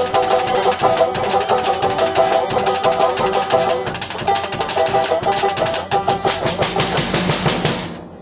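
Live band playing loud, fast music: a banjo picked over rapid drumming on a drum kit with a big bass drum. The music fades and stops shortly before the end, as the song finishes.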